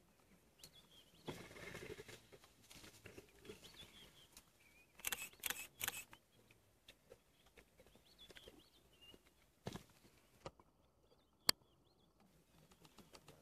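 Lions feeding on a young cape buffalo carcass: a rasping tear about a second in, then a quick run of crunches around the middle and a couple of single sharp cracks later. Faint bird chirps sound in the background.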